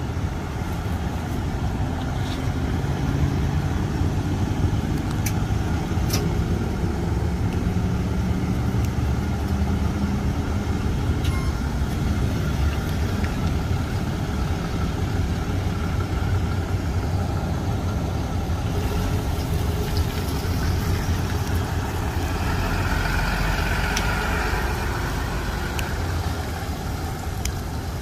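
Tow truck engines idling and running steadily, with a louder swell of traffic or truck noise near the end.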